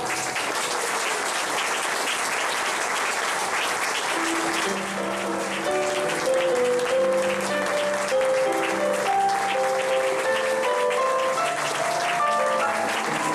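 Audience applauding, with instrumental music, a melody of held notes, coming in about four seconds in.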